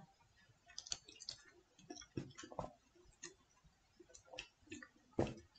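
Faint, irregular small clicks and mouth sounds of sipping a drink through a straw from a glass, with a slightly louder click near the end.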